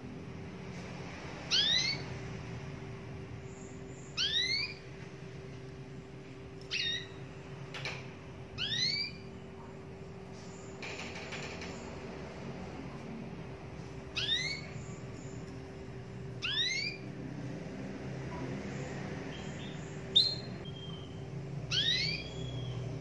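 Domestic canary giving short, rising whistled call notes, one every two to three seconds, about seven in all.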